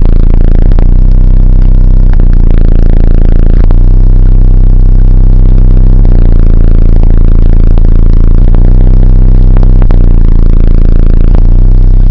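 Sundown Audio SA-12 12-inch subwoofer playing a very low bass track, centred around 28 Hz, at full power inside the truck cab. The bass overloads the microphone into a distorted drone whose note changes every second or two.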